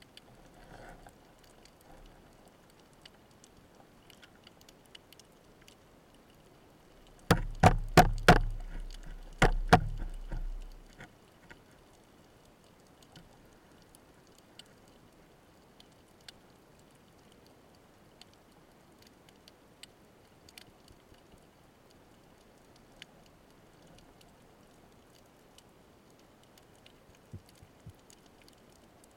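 Underwater ambience scattered with faint, sparse crackling clicks. About seven seconds in come loud sharp knocks: four in quick succession, then two more a second later, each with a dull low thud.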